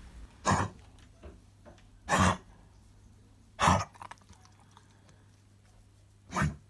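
A dog with kennel cough coughing: four separate bad coughs, one to three seconds apart.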